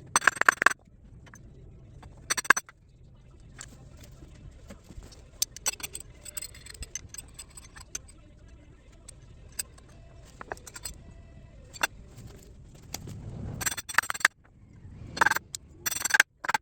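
Irregular metallic clinks, taps and knocks of hand tools and small metal parts being handled while a motorcycle brake lever's sleeve and cylinder are worked back into place, with louder clusters at the start, a few seconds in, and near the end.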